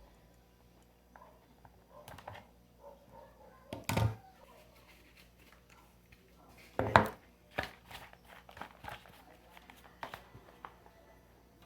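Handling noises from stripping the insulation off a blender's power cord: scattered knocks, clicks and rustling. There is a strong thud about four seconds in, a louder one about seven seconds in, and a run of small clicks after it.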